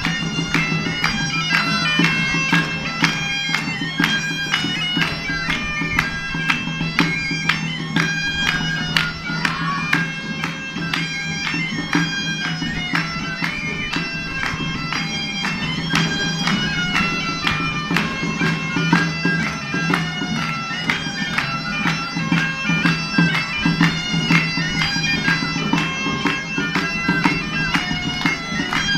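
A Catalan bagpipe (sac de gemecs) plays a quick traditional melody over its steady low drone, in unison with a flabiol (small flute). A tamborí (small drum) taps out the beat under them.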